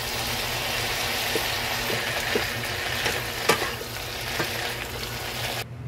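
Cabbage and carrot slices sizzling in a hot pan as they are stir-fried with a wooden spatula, with a few knocks of the spatula against the pan, the loudest about halfway through. The sizzling cuts off suddenly near the end.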